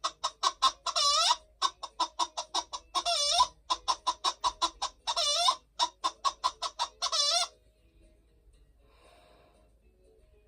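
Hen cackling: runs of quick clucks, each run ending in a long drawn-out squawk, four times over, stopping about seven and a half seconds in.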